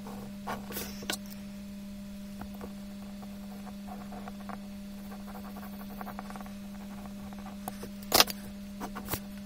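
Faint scratching and tapping of a pen and compass on drawing paper as lines and arcs are inked in, played back sped up, over a steady low hum. A sharper click comes about eight seconds in.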